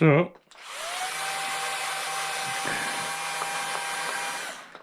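A small power tool's electric motor spinning up, its whine rising briefly and then running steady for about four seconds before stopping.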